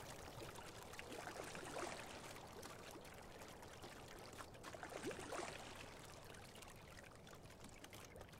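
Faint water trickling and splashing from a single scull moving through calm water, its oar blades entering and leaving the water, with a slightly louder splash about five seconds in.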